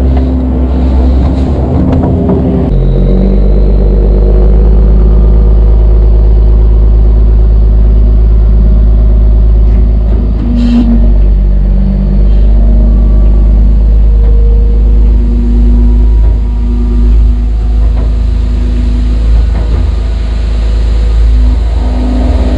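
Kubota skid steer's diesel engine running steadily under working load, its note shifting about three seconds in.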